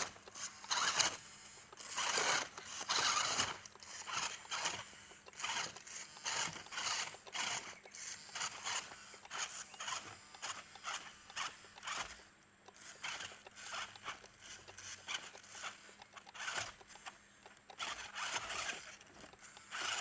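Mini 4WD RC truck driving over rough ground: irregular bursts of scraping and crunching from its tyres and drivetrain, several a second, with brief lulls.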